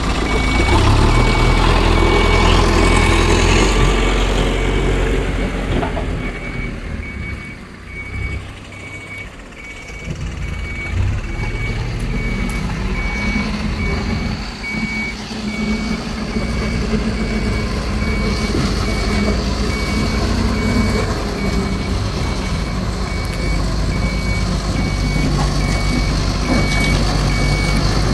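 Diesel engine of a JCB earthmoving machine running under load, with its reversing alarm beeping at an even pace throughout. The engine eases off for a few seconds around a quarter of the way in, then picks up again.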